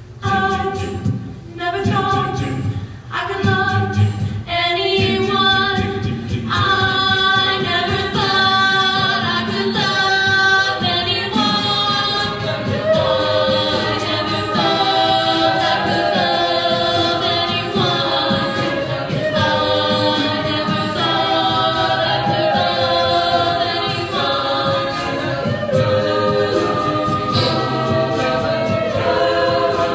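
A co-ed a cappella group of mixed male and female voices sings chords in harmony, with no instruments. The chords are short and clipped in the first few seconds, then held and changing every second or so.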